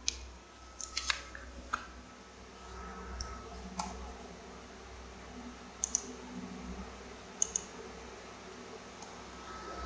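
About nine sharp clicks spread irregularly, several coming in quick pairs, over a faint steady low hum.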